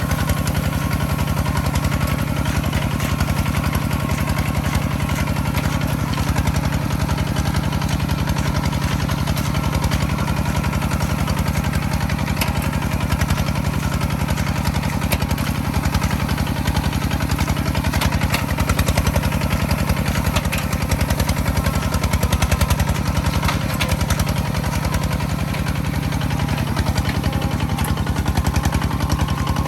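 A farm machine's engine running steadily, an even low hum with rapid firing pulses that holds without a break. A few faint clicks sound over it.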